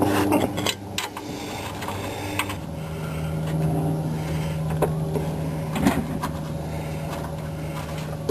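A small motor running with a steady hum that drops to a lower pitch about two and a half seconds in, with a few light metal clicks, while the lower shock absorber bolt is being fitted.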